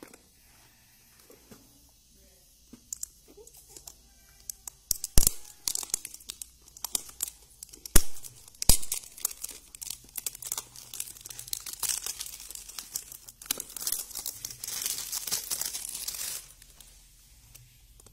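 Cardboard product boxes and their wrapping being handled and opened by hand: a few sharp snaps and clicks, then a long stretch of crinkling and tearing that stops shortly before the end.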